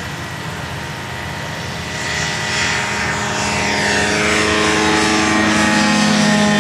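Fisher FP-202 Koala ultralight's engine and propeller running at takeoff power as the plane climbs out, growing louder about two seconds in as it comes close, with the pitch falling as it passes by.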